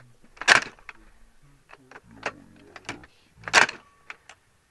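M2 .50 caliber machine gun being charged by hand: the retracting handle is pulled back and released twice, each time ending in a loud metallic clack of the bolt going home, with lighter clicks and rattles of the handle and cover in between.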